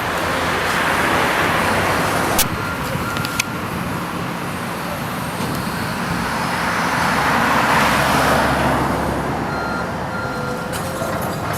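Heavy demolition machinery tearing down a building: a diesel engine running low under a loud, rough noise of material being broken and falling, which swells and fades. Two sharp knocks come about two and a half and three and a half seconds in.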